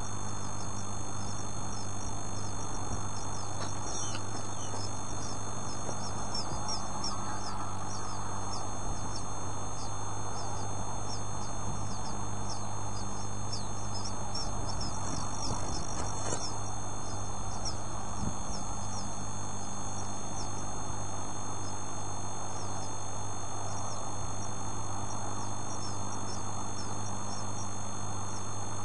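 Newly hatched bird chicks peeping constantly in thin, high, quick notes that slide downward, over a steady low electrical hum.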